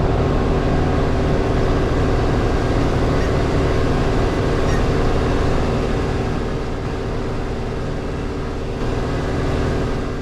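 Farm tractor engine running steadily, a constant drone that eases a little in level in the second half.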